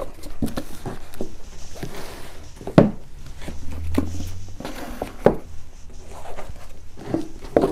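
Hardcover books being picked up, slid and set down on a wooden desk and shelf: a series of knocks and thuds, the sharpest about three seconds in.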